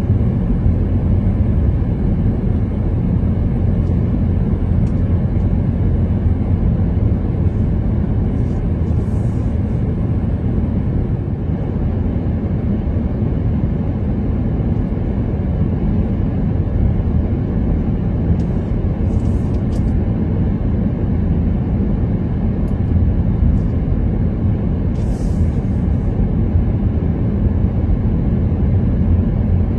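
Steady low rumble of a car on the move, road and engine noise, with a few faint high clicks.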